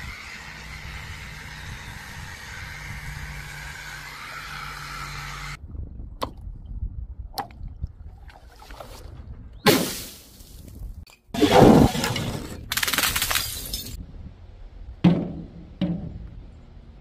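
A steady mechanical whir while a tool is held into a squishy toy, then, after a cut, a series of sharp knocks and impacts, the loudest a crash about twelve seconds in followed by a second or two of crackling, like something breaking.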